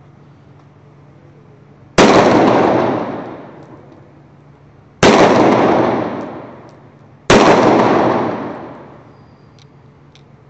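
Ekol Volga blank-firing pistol firing three 9 mm P.A.K. blank rounds: about two seconds in, three seconds later, then again about two seconds after that. Each sharp, loud bang fades out over a second and a half or so of echo.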